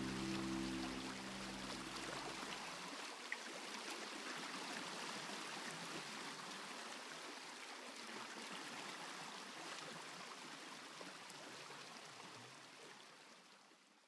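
The last of a held musical drone dies away in the first couple of seconds. It leaves a soft, steady wash of flowing-water ambience that fades out near the end.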